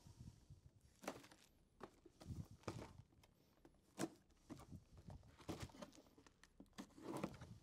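Faint, scattered taps and scrapes of a knife cutting through the tape of a small cardboard box and the cardboard being handled, a few clicks about a second apart.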